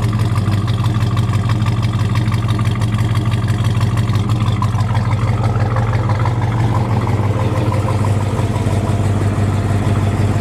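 1968 Chevelle SS's 396 big-block V8, bored .030 over with a mild 'thumper' cam, idling steadily with a lumpy idle.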